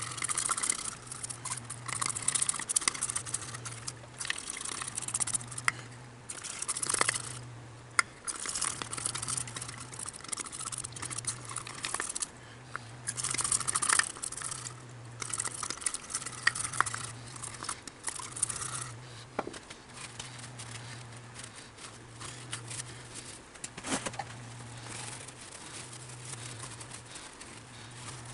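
Irregular scrubbing, rustling and wiping noises of small motor parts being cleaned by hand, in spells of a second or two that die down about two-thirds of the way through, with a few sharp clicks of parts being handled. Under it a faint low hum swells and fades about once a second.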